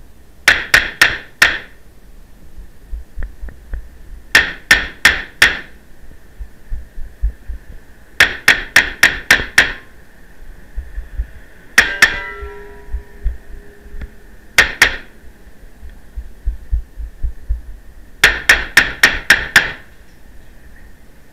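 9mm Beretta CX4 Storm pistol-calibre carbine firing rapid strings of shots, about four to six shots a string in quick succession, with short pauses between strings. A pair of shots near the middle leaves a ringing tone hanging for about two seconds.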